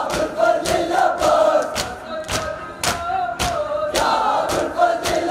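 Shia mourners doing matam, a crowd beating their chests in unison at about two strokes a second, while chanting a nauha lament together.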